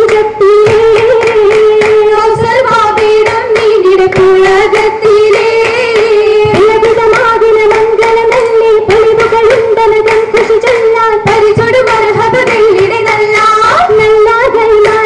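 Oppana song: a group singing the Mappila melody over dense, rhythmic hand claps from the dancers.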